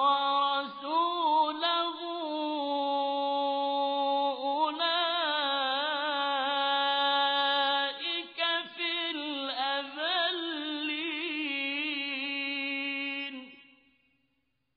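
A male reciter chanting the Quran in melodic tajweed style: long, ornamented, drawn-out phrases with a wavering pitch. The voice stops about thirteen and a half seconds in.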